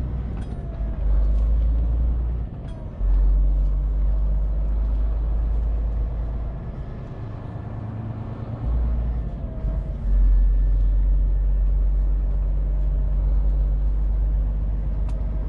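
Scania truck's diesel engine running, heard from inside the cab: a deep rumble that drops away briefly several times and comes back.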